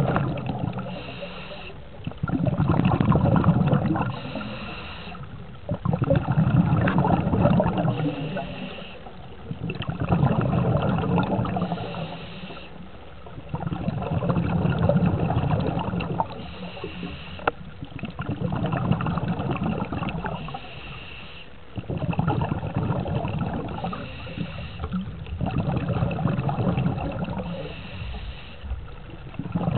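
Scuba diver breathing through a regulator, heard underwater: a short hiss on each inhale, then a rush of gurgling exhaust bubbles on each exhale, about one breath every four seconds.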